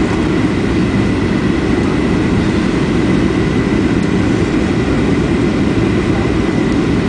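Airliner cabin noise: a steady, loud rumble of jet engines and airflow, with a faint steady whine above it.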